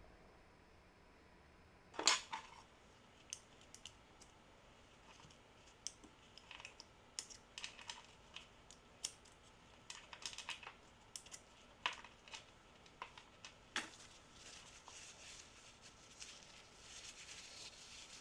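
Small steel parts of an impact driver's gear and hammer assembly clicking and clinking as they are handled, with a louder knock about two seconds in. Over the last few seconds, a soft rustle as the parts are wiped with a paper towel.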